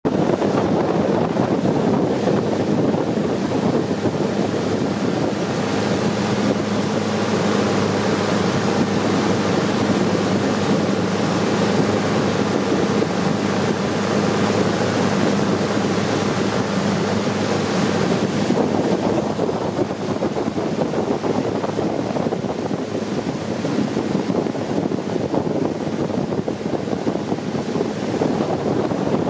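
Long-tail boat under way, its engine running steadily, with wind rushing over the microphone.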